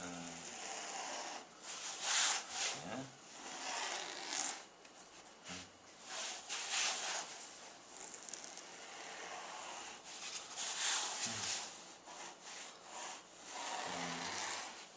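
Felt-tip marker dragged across a thick foam sponge sheet in a series of short scratchy rubbing strokes while curves are drawn on it.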